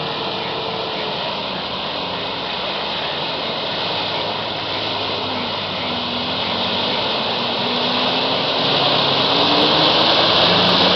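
Engines of 4x4 SUVs running as they drive through a flooded field, their pitch slowly rising and falling, with water sloshing. The sound grows louder as one SUV comes close near the end.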